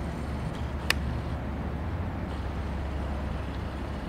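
Steady low hum over a noisy background, with one sharp click about a second in.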